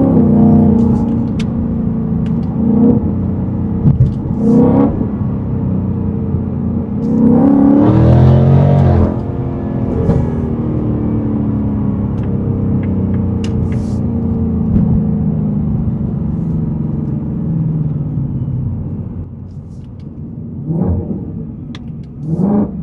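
Whipple-supercharged Shelby Super Snake V8 heard from inside the cabin while driving, with supercharger whine. The engine runs steadily, revs up hard and falls back around the middle, then gives two short blips near the end.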